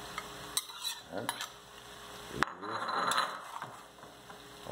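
A long metal spoon knocking and scraping against a bowl and an aluminium pot as diced tomatoes are scraped into the pot. A few sharp clinks, the loudest about halfway through.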